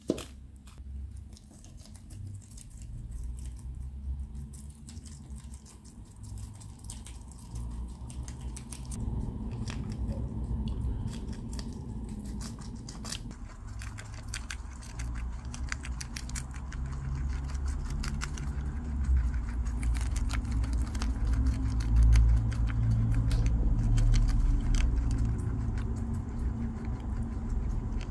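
Guinea pigs munching lettuce leaves close to the microphone: a rapid run of crisp crunching and snipping clicks over a low rumble, growing louder through the second half.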